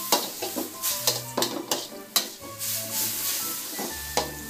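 Rice noodles for Pad Thai sizzling in a stainless steel wok as a metal spatula stirs and tosses them through the sauce, scraping and clacking against the pan in quick, irregular strokes.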